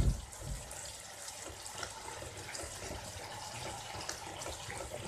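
Spatula stirring a thin, watery onion-tomato masala in a wok: faint, steady wet sloshing with small scrapes and ticks as the added water is worked in to come to the boil.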